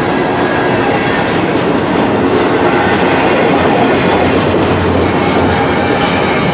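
A freight train's container cars rolling past close by: a steady, loud noise of steel wheels running on the rails.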